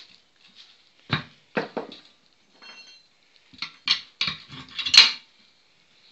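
Tyre lever and steel angle iron clinking and clanking against a steel wheel rim. Two knocks come in the first two seconds, then a quicker run of clanks in the second half, the loudest about five seconds in.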